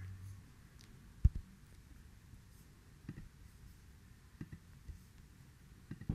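A computer mouse clicking a few times at uneven intervals, with one louder, sharper click about a second in.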